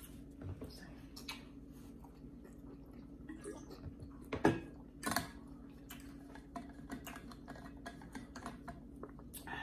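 Close-up eating sounds: chewing and small clicks of a metal fork against a plate, with two sharper clicks about four and a half and five seconds in, over a steady low hum.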